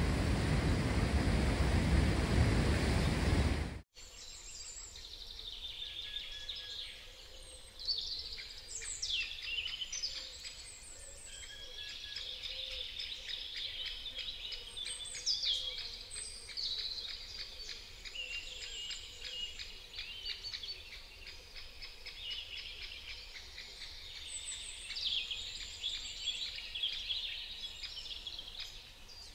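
A loud, steady rush of noise cuts off abruptly about four seconds in. After that, small birds chirp and sing repeatedly over a faint outdoor background, several calls sweeping quickly downward.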